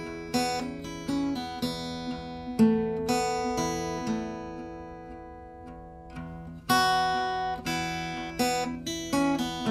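Background music: acoustic guitar, chords strummed and notes plucked, each stroke ringing out and fading.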